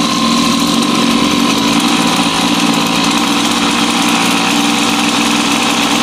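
Small 49cc two-stroke engine of a kids' pocket dirt bike running steadily near idle as the bike creeps off at low throttle.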